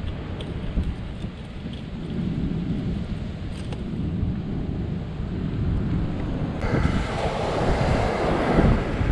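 Wind rumbling on the microphone over the wash of surf on the beach, with no clear single event; about two-thirds of the way in it turns suddenly louder and hissier.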